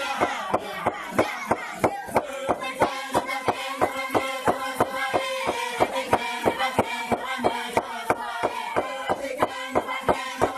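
A group singing a chant on steady, held notes over a quick, even pounding beat that keeps strict time, with some strikes louder than others.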